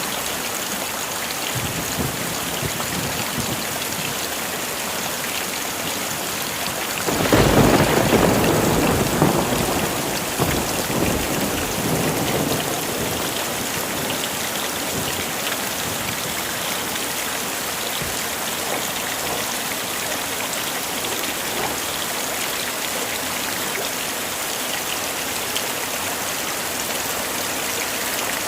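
Heavy rain falling steadily, with one clap of thunder breaking in about a quarter of the way through and rumbling away over several seconds.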